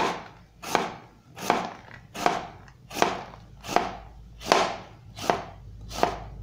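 Kitchen knife slicing through half a white onion on a cutting board: nine even cuts in a steady rhythm, one about every three-quarters of a second.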